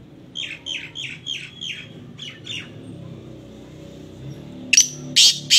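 Caged black francolin calling: a quick series of about seven short, falling notes, then three loud, harsh call notes near the end.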